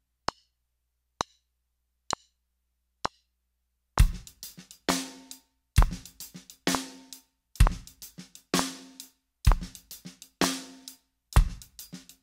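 DW Performance drum kit playing a slow shuffle groove after four evenly spaced count-in clicks. Bass drum falls on beats one and three and a ringing snare backbeat on two and four. The shuffled hi-hat has its second note accented, with very light snare ghost notes between the hi-hat strokes.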